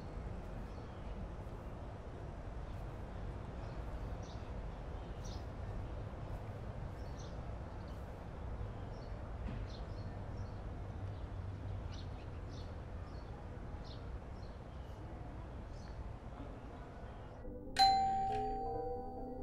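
Steady outdoor background with faint scattered bird chirps, then near the end a doorbell rings once, sudden and loud, its chime fading away.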